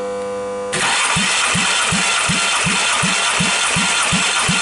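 Skoda 1.6 AEE 8-valve four-cylinder engine being cranked by its starter for a compression test, starting about a second in: a steady whirr with a low pulse roughly three times a second. The pulses are cylinder one's compression strokes, which build to about 10 kg/cm² on the gauge.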